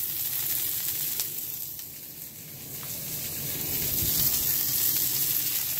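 Lamb burger patties and beef sausages sizzling on upturned grill grates used as a griddle on a hot grill. The sizzle eases slightly about two seconds in, then picks up again.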